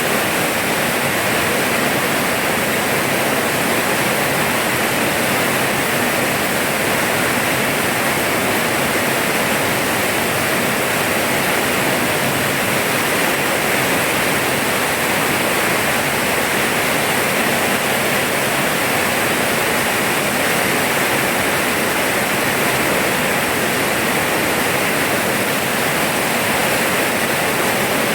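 Rain falling steadily: a dense, even hiss with no breaks or separate drops standing out.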